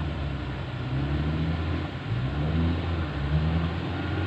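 Off-road 4x4's engine running in the water, revving up several times in short rising bursts over a steady low drone.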